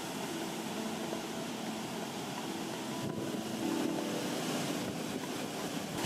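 Waterfall rushing: a steady, even hiss of falling water heard from some distance.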